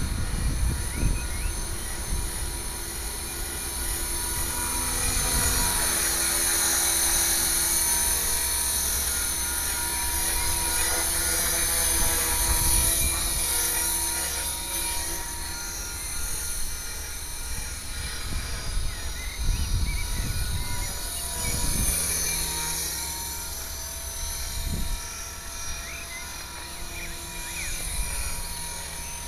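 HK 450 Pro TT electric RC helicopter running steadily at about 2400 rpm: rotor and drivetrain with a high whine. The unhealthy noise comes from a defective mainshaft ball bearing.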